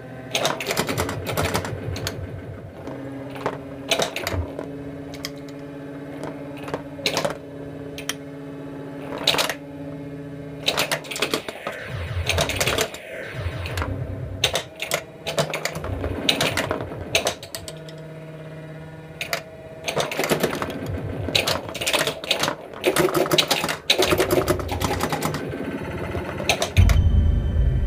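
Williams Alien Poker pinball machine in play: rapid, irregular clicks and knocks of the ball hitting bumpers, targets and flippers, over the machine's steady electronic sound-effect tones, which shift in pitch from time to time. A loud low rumble comes in near the end.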